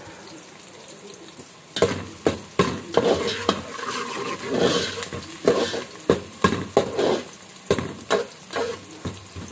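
Chopped onions sizzling as they fry in oil in a metal pot. From about two seconds in, a metal ladle stirs them, scraping and knocking against the pot again and again.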